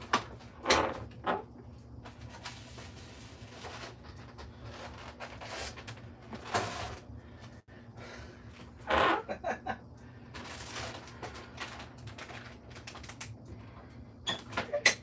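Kitchen handling sounds: cupboard doors opening and closing, with knocks, clicks and rustling as items are taken out and set on the counter. The sharpest clicks come just before the end.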